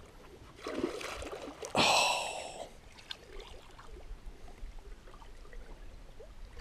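Water splashing at the surface beside the boat: a short rush of water about a second in, then a louder splash about two seconds in that fades quickly, as a fish swims off.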